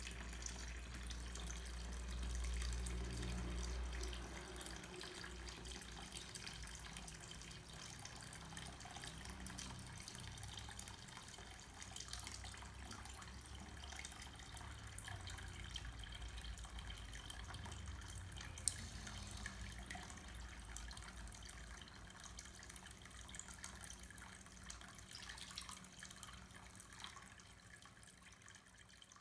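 Water pouring from a clear plastic tube into a plastic basin of water: a steady running splash, with one sharp click about two-thirds of the way through.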